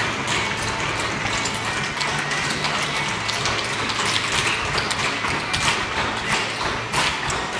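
A group of children's tap shoes striking a wooden floor together, a dense, uneven clatter of many taps that never lets up, over a song playing in the background.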